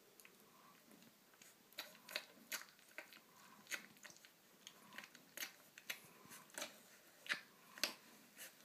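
Newborn Bracco Italiano puppy suckling at its mother's teat: faint, irregular wet smacking clicks, about two a second, starting about two seconds in.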